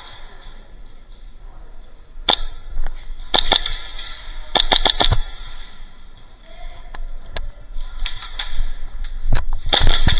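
Airsoft guns firing. There is a single shot, then two quick bursts a few seconds in, then scattered single shots and another short burst near the end.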